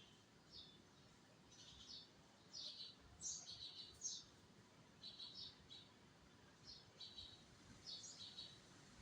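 Small birds chirping faintly: short high chirps in quick clusters, a few sliding downward in pitch, repeating irregularly.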